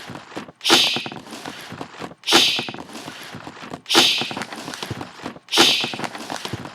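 A looped rhythm of recorded everyday sounds: a sharp, hissy burst four times, about every second and a half, with quieter taps and clicks in between.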